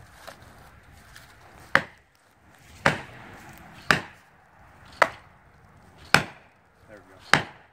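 Six sharp hammer blows, about one a second, driving a felling wedge into the back cut of a poplar to tip the tree over.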